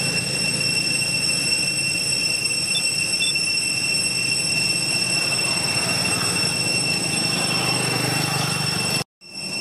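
Steady high-pitched drone of cicadas in the trees, over a low outdoor rumble. The sound cuts out abruptly for a moment near the end.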